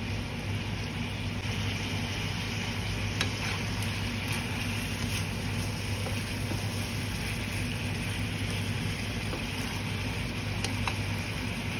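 Chicken wings and mushrooms sizzling in a nonstick wok over a steady low hum, with a few light clicks of a spatula against the pan.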